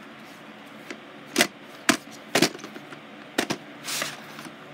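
Plastic VHS cassettes and their cases clacking and knocking as they are handled and moved: several sharp separate clacks spread over a few seconds, with a short scuffing sound near the end.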